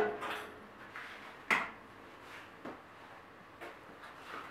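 A few light clicks and knocks as a hose and its fittings are handled against stainless-steel brew kettles. The sharpest knock comes about a second and a half in, with softer clicks after it.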